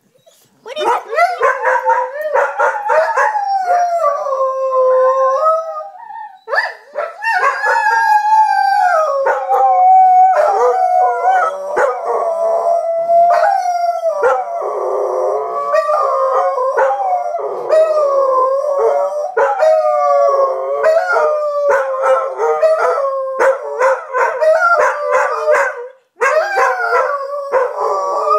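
Two dogs howling together, a golden retriever and a grey-and-white dog, in long wavering howls that slide up and down in pitch, their voices often overlapping. There are short breaks about six seconds in and near the end.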